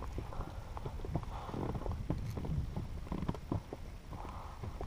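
Irregular light knocks and taps against an inflatable boat while a small pike is handled and unhooked with forceps, over a low rumble of wind on the microphone.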